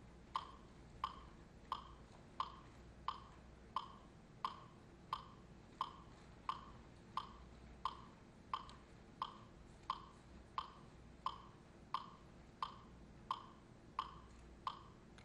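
A steady beat of sharp, wooden-sounding clicks, evenly spaced about three every two seconds, each with a short ringing tail. The beat keeps a fixed tempo and stops just before the end.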